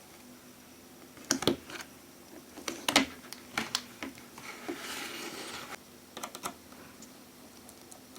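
Small clicks and taps of a prying tool working the iPhone 6 Plus screen off its frame, in short irregular clusters, with a brief scratchy scrape about five seconds in.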